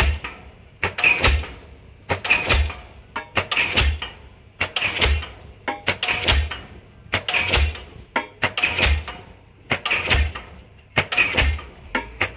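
Diesel pile hammer driving a pile, with steady blows about one every 1.3 seconds, each a sharp bang with a ringing tail.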